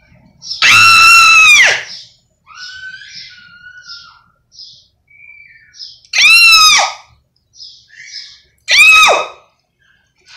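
A person screaming loud, shrill calls three times: a long call about a second in, then two shorter ones near the end. Each is held on one high pitch and drops off at its end. Faint bird chirps can be heard between the calls.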